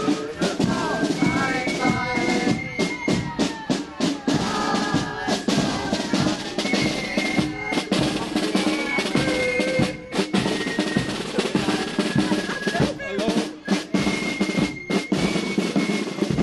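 Marching band music: snare and bass drums beat rapidly and busily, with several held high notes sounding over the drumming.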